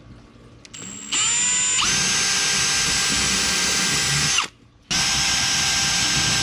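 Cordless drill boring pilot holes through a driftwood board with a thin bit, so the screws can come up from below without cracking the wood. The motor winds up with a rising whine just after a second, runs steadily at full speed, stops briefly about four and a half seconds in, then starts again.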